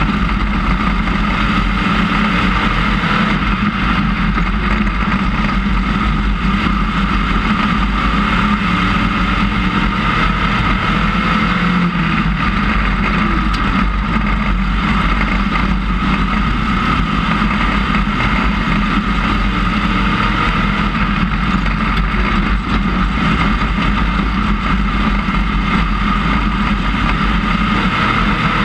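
IMCA Sportmod dirt-track race car's V8 engine running hard at speed, heard from inside the cockpit: a loud, steady drone that barely changes in pitch.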